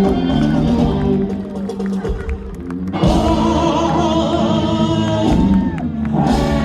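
Live band music played loud through a PA, with sustained notes and some singing, the band carrying on after a short dip about halfway through.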